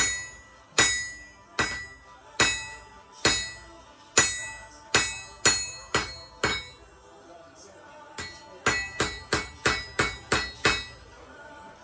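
Hammer blows on steel at an anvil, each strike ringing out. The blows come about one every second at first, pause, then quicken to about three a second before stopping near the end.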